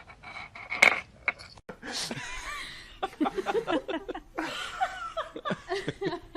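A person laughing in short bursts, with a sharp knock about a second in.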